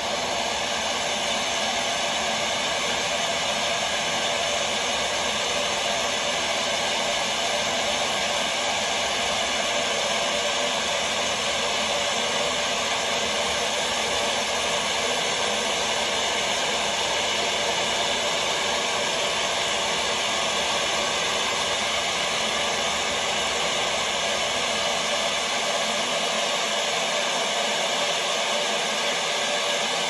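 Waterfall cascading over tiered pools: a steady, even rush of falling water.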